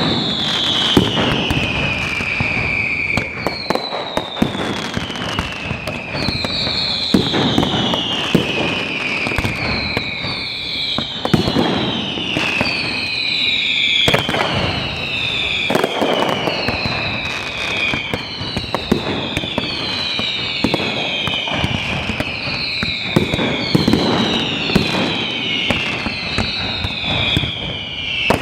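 Fireworks display: a dense, continuous run of bangs and crackles, with whistling fireworks shrieking over it, one after another and overlapping, each whistle sliding down in pitch over two or three seconds.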